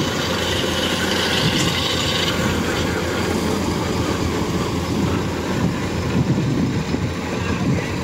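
Steady running of the diesel engines of rice-harvesting machinery: a Kubota DC-105X combine harvester cutting rice and a tracked grain cart idling close by.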